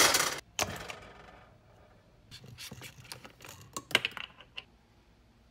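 Kitchen handling noises: a short loud rush of noise at the start that fades over the next second or so. Then a string of light clicks and knocks as a plastic cooking-oil bottle and a wooden kitchen cabinet are handled, sharpest near the end.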